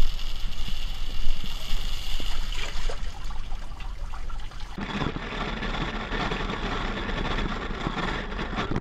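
Water splashing and trickling in a wet street gutter as a small Meccano model truck drives through it and onto a metal storm-drain grate. The noise gets louder about five seconds in.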